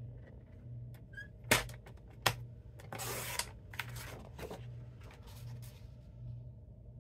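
Sheet of patterned paper being cut on a paper trimmer and handled: two sharp clicks, then a short swish about three seconds in as the strip is cut and the sheet pulled away, with soft paper rustles.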